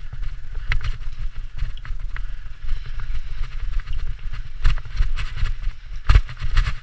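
Mountain bike descending a dirt singletrack at speed: a constant rumble of wind buffeting the microphone, with the bike clattering and knocking irregularly over bumps in the trail, loudest near the end.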